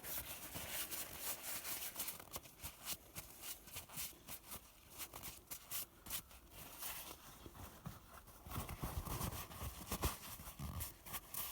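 Irregular rustling and scuffing of oily hands being wiped clean with a shop rag.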